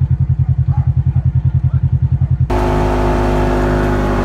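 Polaris RZR XP 900 side-by-side's parallel-twin engine, first a low, rapid, even throbbing of about ten beats a second. About two and a half seconds in it switches abruptly to a steady running drone with several held tones as the machine drives on.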